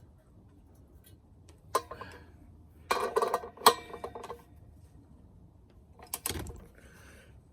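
Metal tool clinking and knocking against a bolt and lock washer as they are tightened: a sharp click about two seconds in, a cluster of ringing metallic clinks around three to four seconds, and a knock with a low thud near the end.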